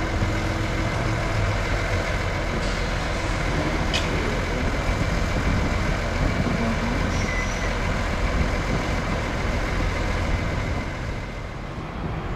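Boeing 787-8 airliner's jet engines running with a steady, even rush.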